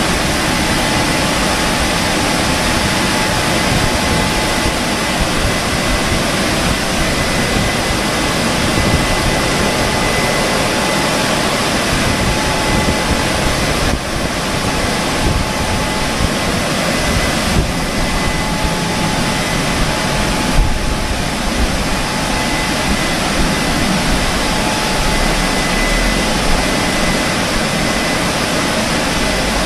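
Automatic rollover car wash gantry running its drying blowers as it travels along the car: a steady, loud rush of air with a faint high whine over it.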